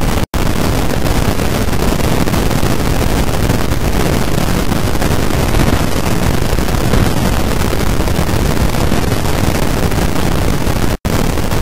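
Loud, steady rushing noise like static or wind on a microphone, with no distinct events in it. It cuts out to silence for an instant just after the start and again about a second before the end.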